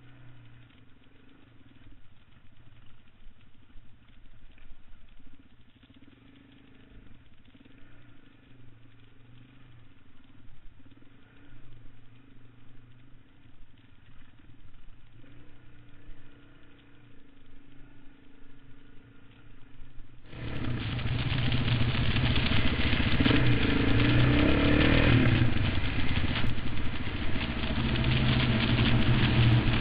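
Dirt bike engine running steadily and fairly quietly while riding a rocky trail. About two-thirds of the way in, the sound jumps abruptly to a much louder motorcycle engine running close by, with its pitch and level moving a little, as if idling and being blipped.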